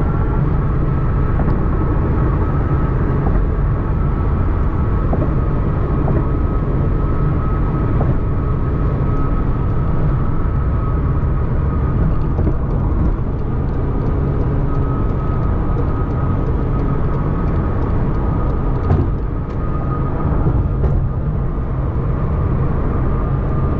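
Inside the cabin of a McLaren 720S cruising steadily in seventh gear: a low drone from its twin-turbo V8 and tyres on the road, with a faint steady high whine over it. A single brief knock comes near the end.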